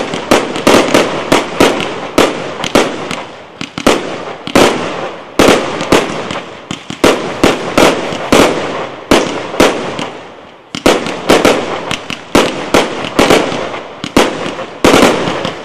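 Aerial fireworks display: loud shell bursts and launch bangs in quick succession, several a second, over a continuous hiss. The bangs thin out briefly about ten seconds in, then pick up again.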